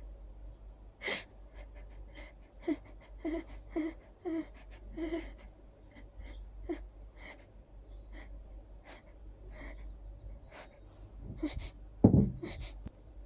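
A person's gasping, hitching breaths as a sneeze builds: a string of short breathy catches, several of them voiced 'ah' gasps close together about three to five seconds in. One loud sneeze comes near the end.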